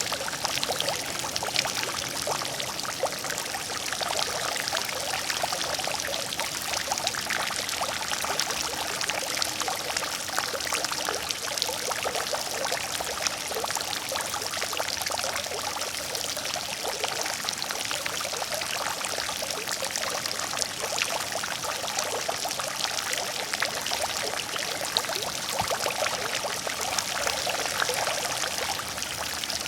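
Water fountain splashing steadily, a continuous pouring and spattering of falling water full of fine droplet patter.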